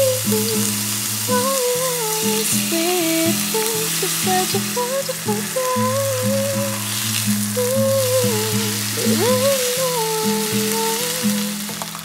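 Thin round slices of meat sizzling in hot oil in a non-stick frying pan, a steady hiss, under background music with a melody and bass line.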